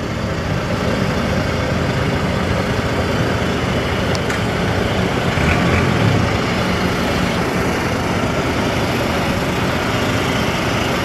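Diesel engine of a Volvo crane truck running as the truck creeps forward at low speed, a steady low rumble that swells a little about halfway through.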